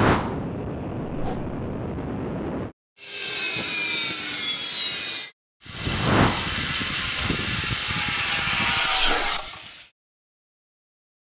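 Rushing wind and the whir of a zipline trolley running fast along its steel cable, heard in three stretches of a few seconds each that start and stop abruptly. There is a whine sliding in pitch in the middle stretch, and the sound cuts out about ten seconds in.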